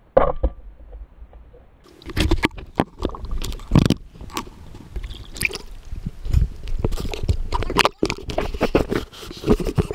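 Water sloshing and gurgling against a waterproof camera, with many sharp knocks and clatters of handling as it comes up from underwater and breaks the surface. One sharp knock right at the start, then from about two seconds in a dense, uneven run of knocks and splashes.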